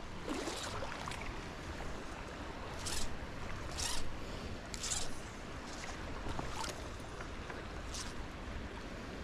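Small stream running steadily, with about seven short, sharp swishes spread through it, the loudest about three and four seconds in.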